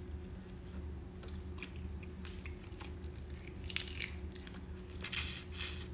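Boiled crawfish being peeled and eaten by hand: shells cracking and snapping, with chewing. There is a cluster of cracks about four seconds in and a denser, noisier stretch near the end, over a steady low hum.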